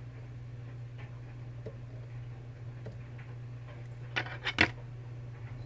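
Small clicks from handling tools at a fly-tying vise: a few faint ticks, then a quick run of four sharp clicks about four seconds in, over a steady low hum.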